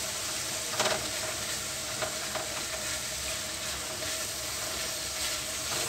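Tomato and spice masala sizzling in oil in a black wok, stirred and scraped with a silicone spatula, with a louder scrape about a second in. The masala is being fried until the oil separates.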